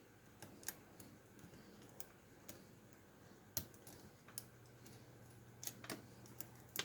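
Faint, irregular small clicks of a lock pick working the serrated pins of a lock, about ten in all, with a faint low hum coming in about halfway.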